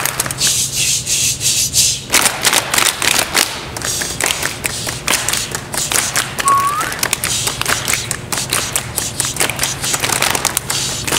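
A group of people doing body percussion with their hands: many overlapping taps, pats and rubs making a dense, continuous patter. A short rising whistle sounds about six and a half seconds in.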